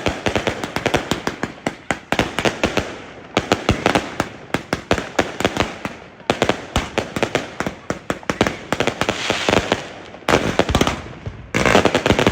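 Firecrackers going off in rapid, irregular strings of sharp pops, with brief lulls and a longer pause about ten seconds in before another dense run.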